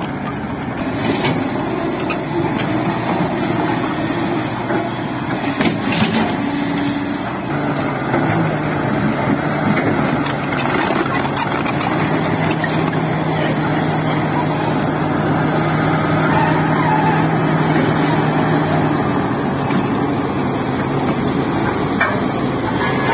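Heavy diesel construction machinery running steadily, with a continuous engine drone: an excavator and a road roller working, with tipper trucks nearby.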